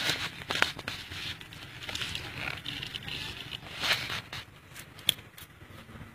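Clear plastic film crinkling and crackling as it is handled and wrapped around a fresh graft, with a few sharper snaps among the rustling.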